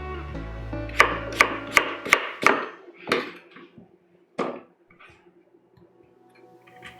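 Chef's knife chopping potatoes on a cutting board: a run of sharp, irregular strokes in the first half, then one more, over background music.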